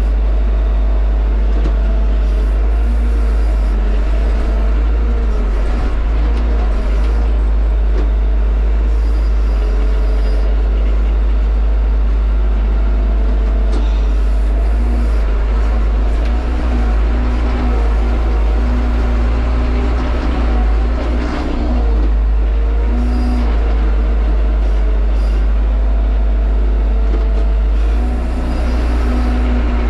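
Tractor engine running steadily, heard from inside the cab, its tone wavering slightly as the load changes.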